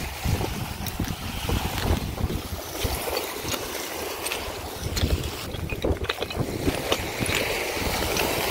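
Wind buffeting the microphone, with small waves lapping at the shore and irregular crunching and clinking of footsteps on loose coral rubble.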